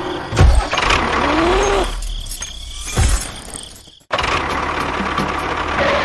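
Tractor engine running, with a couple of thumps and a short rising-and-falling whine. It breaks off for a moment about four seconds in, then runs on steadily.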